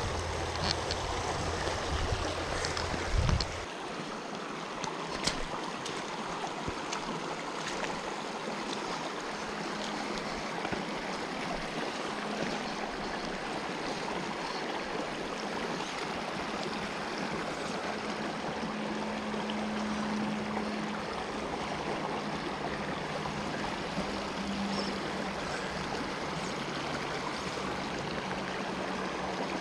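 Steady rush of a small rocky creek flowing over a shallow riffle. A few light clicks and knocks sound in the first few seconds.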